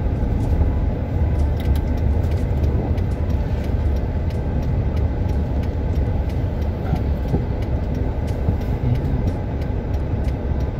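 Car driving along, heard from inside the cabin: a steady low rumble of engine and tyre noise.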